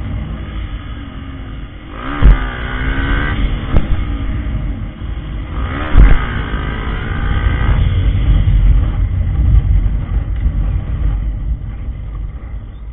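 Motorcycle engine heard from the rider's seat with heavy wind rumble on the microphone. The engine is revved up and back down twice, about two seconds in and again about six seconds in, each rev opening with a sharp thump; it quietens near the end.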